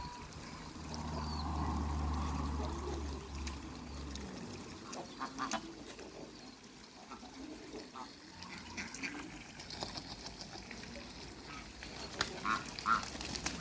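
Ducks splashing and dabbling in shallow water, with scattered small splashes and a few short calls near the end. A low steady hum runs through the first four seconds, then stops.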